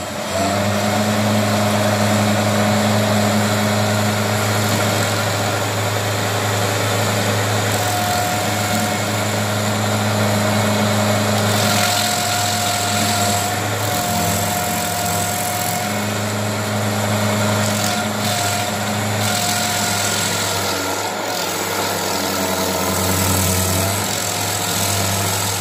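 Rayco stump grinder's engine running steadily under load as its cutter wheel grinds into a tree stump, throwing wood chips, with a whine that rises and falls a little as the wheel bites.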